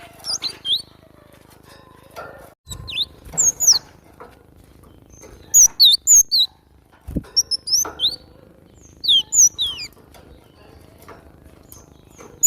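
Cinereous tit (glatik batu) singing: groups of two to four sharp, high, falling whistled notes, repeated every second or two. Two dull low thumps break in, one a little under three seconds in and one past the middle.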